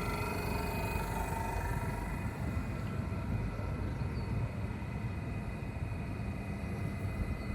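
A train at a railway station: a steady low rumble with a faint high whine.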